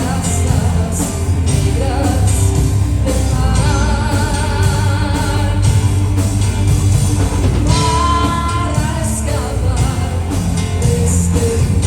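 Rock band playing live, with a singer holding long notes with vibrato over guitars and drums.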